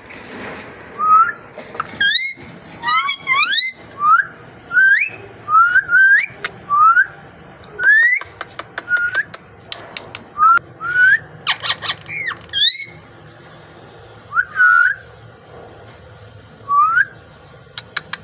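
Pet parrot whistling: short rising whistle notes, one after another with short pauses, about twenty in all, with a few quick clicks in the middle.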